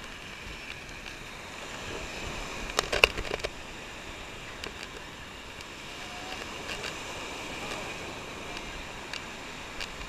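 Surf washing up a sandy beach: a steady hiss of shallow foaming water. A quick cluster of sharp clicks about three seconds in is the loudest thing.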